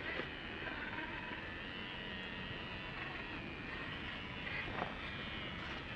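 Small electric motor and geartrain of a 1/24-scale RC crawler whining, the pitch rising and falling, with a few sharp clicks and a knock about five seconds in.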